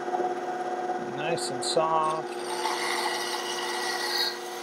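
Ryobi BS904G 9-inch 2.5-amp band saw running with a steady hum while its blade cuts slowly through a block of 2x4, a rasping, rubbing sound of the wood being fed into the blade.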